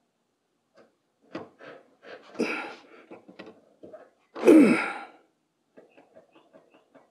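A man's breathy vocal outbursts, the loudest about four and a half seconds in, falling in pitch, with faint rapid clicking between them.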